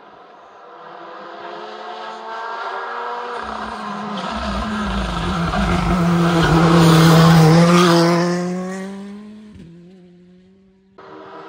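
Rally car approaching at speed and passing close, loudest about seven seconds in, its engine note then dropping in pitch as it goes away. The sound cuts off abruptly near the end as another engine sound starts.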